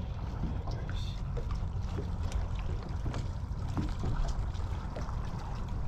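Water lapping against the hull of a small fishing boat at rest, over a steady low rumble, with scattered faint knocks.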